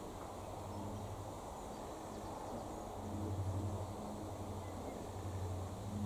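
A flying insect buzzing with a low hum that comes and goes, swelling loudest a little past the middle and again at the end, over a steady outdoor background hiss.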